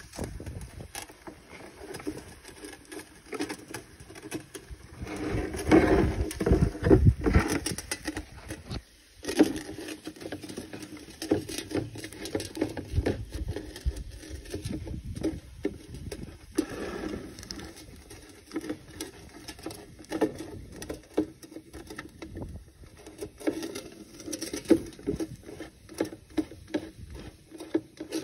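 Aluminium drink can rolled back and forth in a plastic tray of boiling liquid nitrogen: an irregular patter of knocks and rattles as the can rolls against the tray, louder for a stretch about six seconds in.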